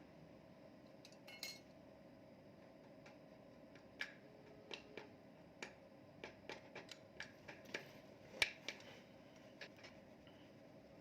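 Irregular light metal clinks and taps from hand tools and parts while a small motorcycle engine is being assembled, with the loudest knock about eight seconds in.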